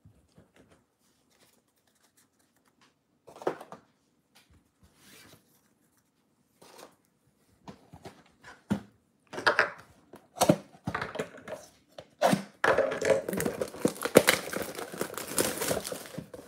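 A sealed 2022 Bowman Baseball mega box of trading cards being handled and opened. After a mostly quiet start there are scattered clicks and knocks from about nine seconds in, then crinkling and tearing of its wrapping and cardboard that turns into a steady rustle near the end.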